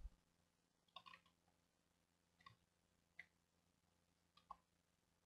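Near silence with a handful of faint, scattered computer mouse clicks.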